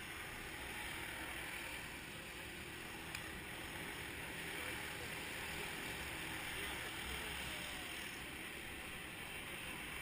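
Go-kart engines running in the distance, a steady drone with no distinct events.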